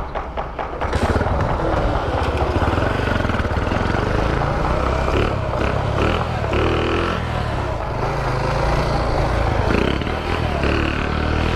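Small 49cc Shineray motorcycle engine idling with a rapid ticking, then revving up about a second in and running under way, its pitch rising and falling with the throttle. The owner says the engine is knocking and making a strange noise.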